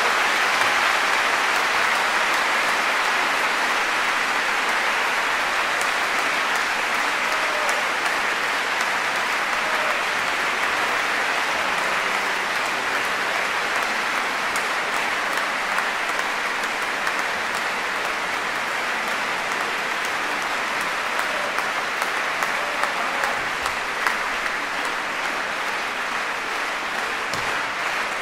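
Large concert audience applauding: dense, steady clapping that eases off slightly toward the end.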